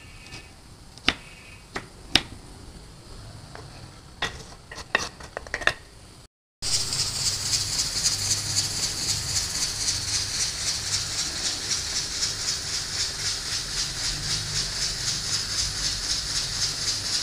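A knife chopping green chillies on a wooden board, a dozen or so sharp cuts. Then, about six seconds in, a pressure cooker on a gas burner venting steam through its weighted whistle: a steady, loud hiss with an even rapid pulsing, the sign the cooker is up to pressure.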